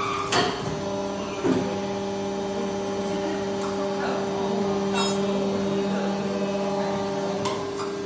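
Aluminium die casting cell running: a steady motor hum from the machine and its automatic ladling arm starts with a knock about a second and a half in and stops near the end, with a few metallic clicks over it.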